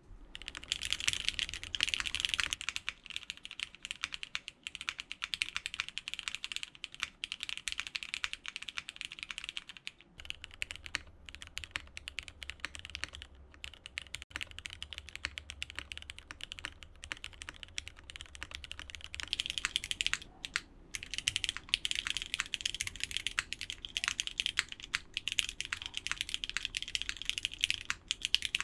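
Fast typing on custom mechanical keyboards fitted with Cherry MX Black linear switches, three boards in turn, the tone of the keystrokes changing about ten seconds in and again near nineteen seconds as each board takes over.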